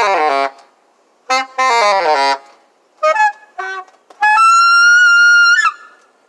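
Solo alto saxophone played with a Rico synthetic reed. It plays the tail of one descending run, then a second run stepping down, then two short notes. It finishes on one long, steady high note held for about a second and a half, which stops shortly before the end.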